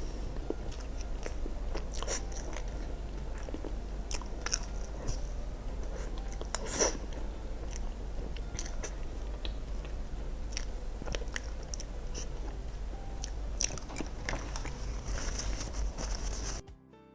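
Close-miked eating sounds: biting and chewing desserts, with scattered wet mouth clicks and smacks. The sound cuts off abruptly just before the end.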